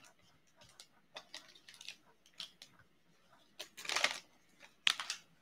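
Plastic trading card pack wrapper crinkling as it is handled and pulled open: scattered light crackles, then a louder crinkle about four seconds in and another about a second later.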